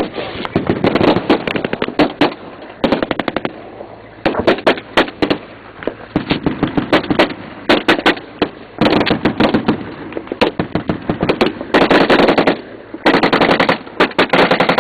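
Automatic gunfire in a firefight, coming in repeated bursts of rapid shots a second or so long with short gaps between, the longest and densest bursts near the end.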